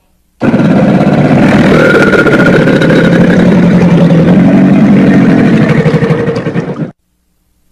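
A crocodilian's long, rough growling call, about six and a half seconds long, starting abruptly and cutting off suddenly.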